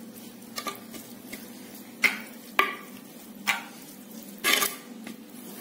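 Metal spoon stirring cooked rice and fish curry in a clay pot: about six short scraping, squelching strokes at irregular intervals, the sharpest about two and two and a half seconds in.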